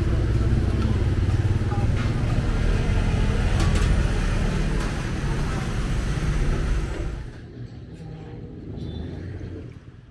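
Busy street traffic with motorbike engines running past, heard as a loud, steady low rumble with a few sharp clicks; it drops off sharply about seven seconds in to a much quieter background.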